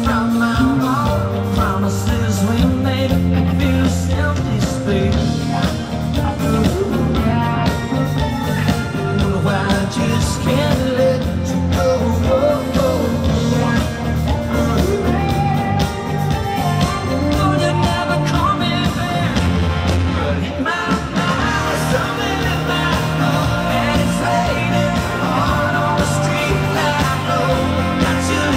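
Live rock band playing at full volume: a male lead singer over electric guitars, bass and drums, heard through the concert PA from the crowd.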